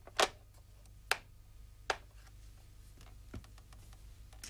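A corded desk telephone's handset set down on its cradle, two sharp clicks at the start, followed by a few single clicks about a second apart over a low steady hum.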